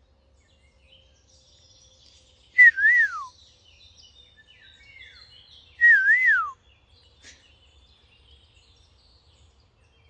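A man whistling an imitation of the Eurasian golden oriole's fluting song to draw the bird to answer: two phrases about three seconds apart, each wavering between two high notes and then sliding down. Faint chirps of other birds in the background.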